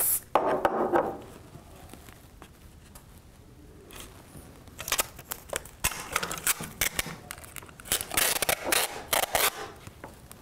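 A short hiss of aerosol CA glue accelerator spray at the very start. From about five seconds in, packing tape is pulled off a handheld tape dispenser in crackling, ripping strips and torn off at the dispenser's cutter, to clamp a glued joint.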